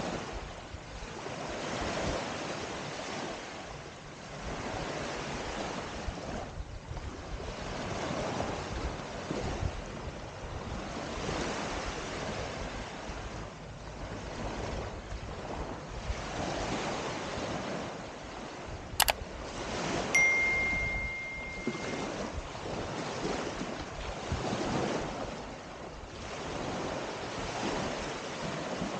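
Small waves breaking and washing up on a sandy beach, the surf swelling and fading every few seconds, with some wind. About two-thirds of the way through, a sharp click is followed by a high steady beep of about two seconds.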